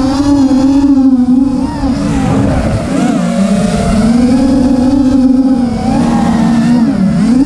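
FPV racing quadcopter's brushless motors and propellers whining, the pitch rising and falling repeatedly with the throttle as it manoeuvres, heard from its onboard camera.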